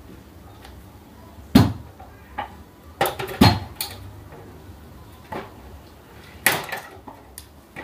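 Plastic side cover of an HP LaserJet Pro MFP M26a printer being pried off its chassis with a screwdriver: a string of sharp plastic clicks and knocks. The loudest knocks come about a second and a half in and again around three and a half seconds.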